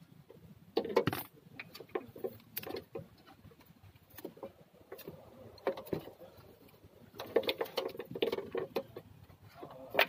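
Irregular clicks and rustling from car wiring-harness wires and plastic connectors being handled and pulled apart by hand. The sounds come in short clusters with gaps of near quiet between them.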